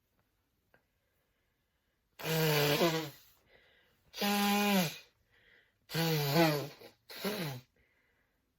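A woman sneezing loudly several times in a row, about four voiced sneezes starting a couple of seconds in, with short breaths between them.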